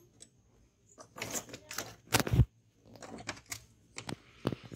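Clicks and knocks of a car battery being lowered into its plastic tray in the engine bay, with one heavier thud about two seconds in as it is set down, then lighter clicks of handling near the terminals.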